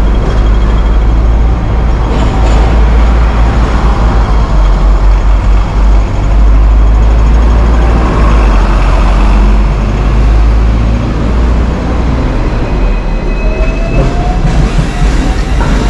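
Busy city street traffic, a loud continuous rumble of passing vehicles. Near the end, a vehicle's motor whine rises steadily in pitch as it pulls away.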